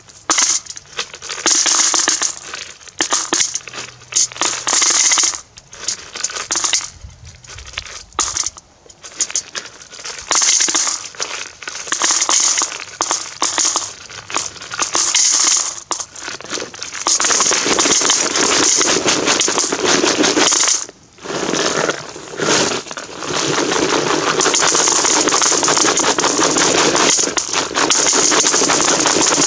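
Russian 1–10 ruble coins pouring from a plastic canister into a metal bucket, clattering onto the pile already in it. The coins come in separate rushes for the first half, then in an almost continuous stream from about halfway on, broken once by a brief pause.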